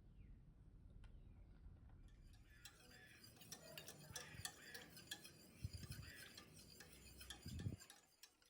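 A utensil stirring in a bowl, with a rapid run of faint clinks from about two and a half seconds in until near the end, over a low hum.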